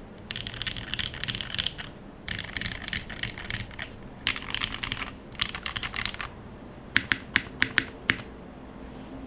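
Typing on a TGR Jane v2 mechanical keyboard with lubed Cherry MX Clear tactile switches on a brass plate and GMK keycaps: fast runs of keystrokes in several bursts with short pauses between. Near the end come about five separate, sharper keystrokes, then the typing stops.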